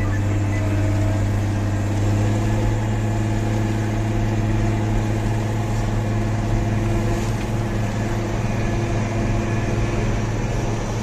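Heavy diesel engine running steadily at a constant speed, an even low hum with no revving.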